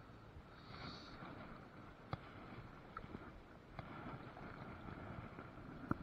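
Faint outdoor background of river water and light wind, with clothing rustling against a body-worn camera as the wearer walks on a muddy bank. Three sharp clicks from the camera's handling stand out, about two seconds in, near four seconds, and the loudest just before the end.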